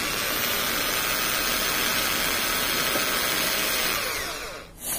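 Electric drill running at low speed, its twist bit boring a hole into a PVC pipe; the motor winds down about four seconds in, and a brief sharp noise follows just before the end.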